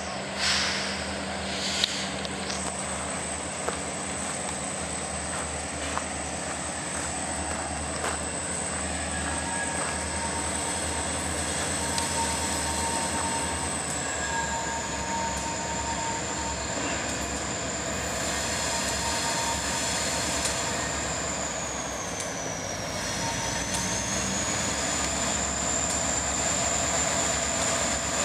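EMD diesel locomotives, two SD40-2s and a GP35M, rumbling at low power as a slow freight train approaches, the sound growing slightly louder toward the end.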